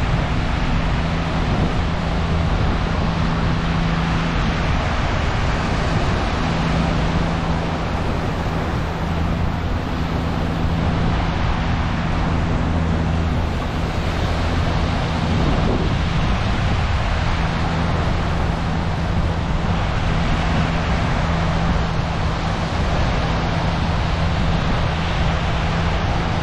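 Small waves breaking and washing up on a sandy beach, with a steady low hum underneath.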